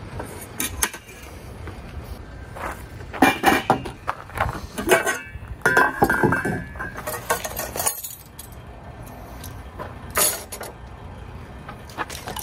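Stainless steel skillet, its lid and metal cutlery clinking and knocking as they are handled and set down on a wooden table: a series of irregular metallic clinks and knocks, one of them ringing on briefly near the middle.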